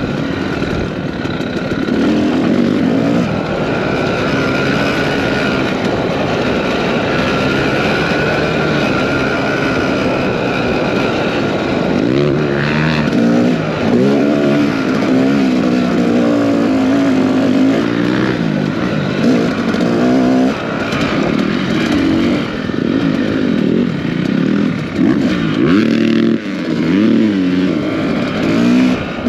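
Off-road motorcycle engine revving up and down as the bike is ridden on a dirt track, its pitch repeatedly climbing and dropping, with quicker swoops in the second half.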